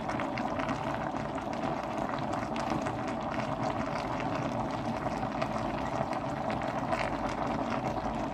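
Pot of pig's trotters and aubergine simmering on the stove: a steady hiss with small bubbling crackles.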